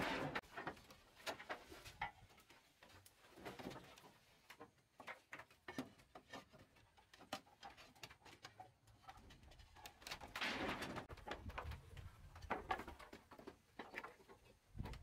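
Long wooden boards knocking and clattering against each other as they are picked up from a pile and carried, a string of scattered wooden knocks with a busier clatter about two-thirds of the way through.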